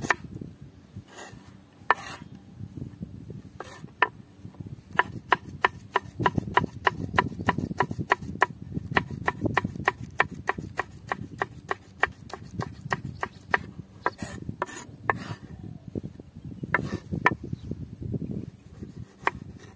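Chef's knife chopping onion and green chilli on a wooden cutting board: runs of sharp knocks of the blade on the wood, a few a second, over a low background rumble.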